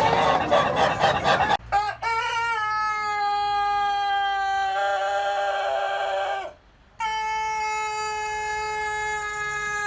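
Rooster crowing: a short burst of rapid, jerky calling, then two very long, drawn-out crows, each held for several seconds and sliding slightly down in pitch, with a brief break between them.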